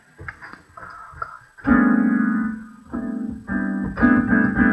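Electronic keyboard playing a series of held chords: a few light clicks at first, then the first loud chord about a second and a half in, followed by three or four more chords in a row.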